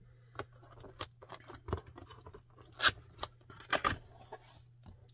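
Cardboard box being opened by hand: flaps and cardboard inserts scraping, rustling and snapping against each other, with sharp cardboard clicks, loudest about three and four seconds in.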